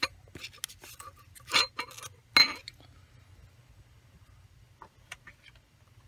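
Light taps and clinks of small hard parts being handled on a desk, with two louder clinks that ring briefly, about one and a half and two and a half seconds in, then a few faint ticks.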